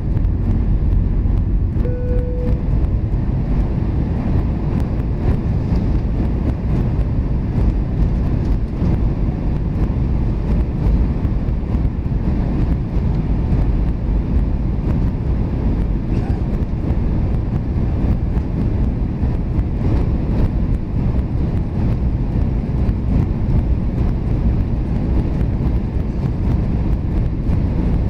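Steady roar inside the cabin of an Airbus A320 on descent: engine and airflow noise, heaviest in the low end. A short, steady tone sounds briefly about two seconds in.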